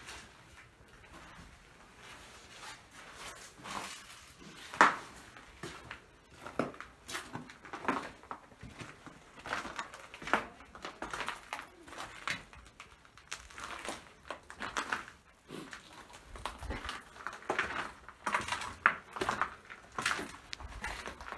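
Footsteps crunching over debris scattered on a hard floor: an uneven string of gritty steps, with one sharp crack about five seconds in.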